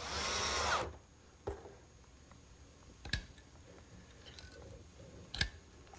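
A power driver runs briefly in the first second, likely driving a screw into the roof-vent frame. It is followed by three sharp clicks or taps of parts being handled on the bench.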